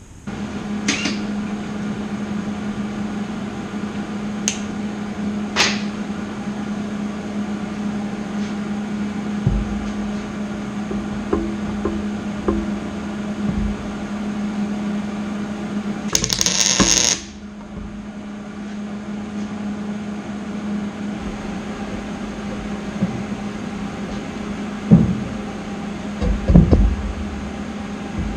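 MIG tack weld on square steel tubing about halfway through: a burst of arc crackle and hiss lasting about a second, over a steady machine hum. A few light clicks, and some dull knocks from handling the tubing near the end.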